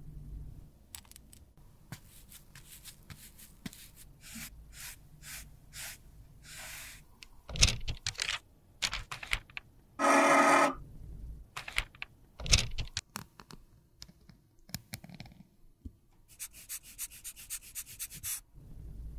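Close-up handling sounds of re-pressing loose face powder in a metal pan: a metal spoon scraping and tapping the powder, with two sharp knocks. About ten seconds in, a loud burst lasting under a second comes as the powder is compressed, and near the end there is a quick run of short puffs from a rubber air-blower bulb.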